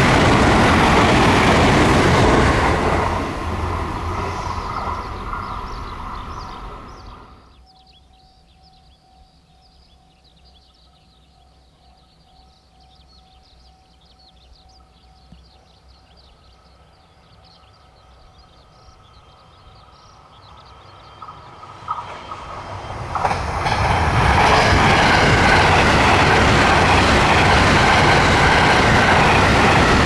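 An electric train runs past close by at speed, its running noise dying away over the first several seconds. After a quiet stretch, a limited-express electric train approaches with a few sharp clicks, then rushes past close by, loud for the last six seconds.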